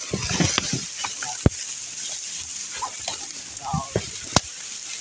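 Crackling rustle of dry reeds and brush being pushed through, with two sharp cracks, one about a second and a half in and one near the end.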